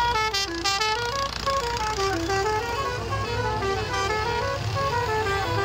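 Electronic musical horn on a decorated tractor playing a quick repeating tune of short stepped notes. Tractor engines run low underneath, and a short, brighter horn blast comes about half a second in.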